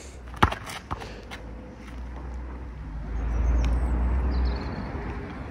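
Outdoor rumble, heavy in the low end, that swells in the middle and then eases off. Two sharp knocks about half a second apart come near the start.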